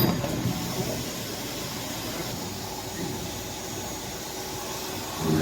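C-100PRO circular sawing machine running with a steady, even mechanical noise.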